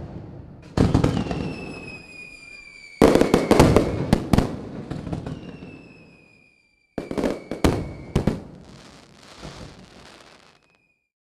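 Aerial firework shells bursting: one bang about a second in, a quick volley of bangs around three seconds, and another volley near seven seconds, each dying away slowly. A thin high whistle, falling slightly in pitch, sounds through the middle.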